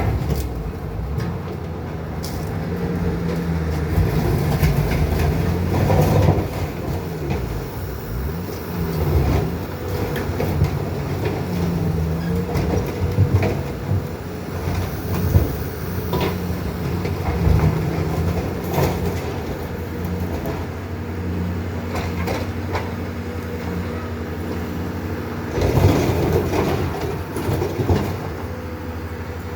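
Heavy farm machinery running: Bobcat skid-steer loaders' engines and a grinder mixer, with knocks and rattles scattered through, and the engine pitch shifting now and then.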